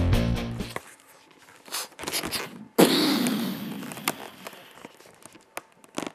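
Latex twisting balloons squeaking and rubbing as they are handled, with a sudden loud burst of noise about three seconds in that dies away over a second or so. A rock music track fades out at the start.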